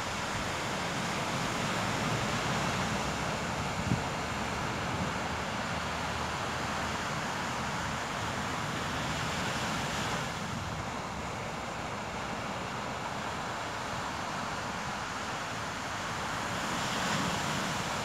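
Small waves breaking and washing up a sandy beach, a steady rush of surf with wind rumbling on the microphone. It swells a little about two seconds in and again near the end, and there is one brief tap about four seconds in.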